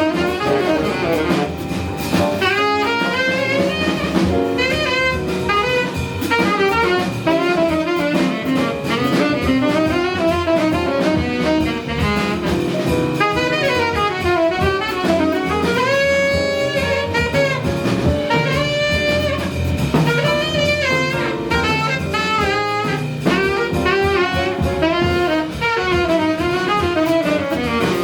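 Live jazz ensemble playing: a saxophone runs quick lines over piano, double bass and drum kit.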